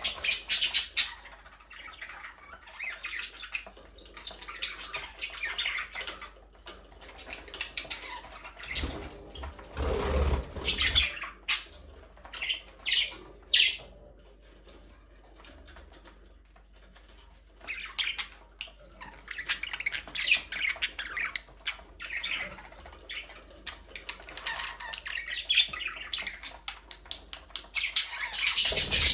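A flock of budgerigars chirping and chattering in quick, irregular calls, with a louder burst of noise around ten seconds in.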